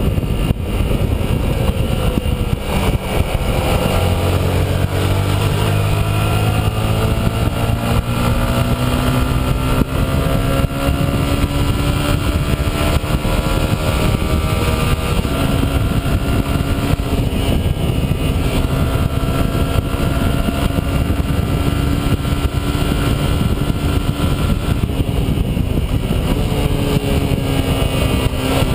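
Stock Yamaha R15's single-cylinder four-stroke engine running at about 90 to 100 km/h, heard from the handlebar-mounted camera, its pitch rising and falling slowly as the throttle changes.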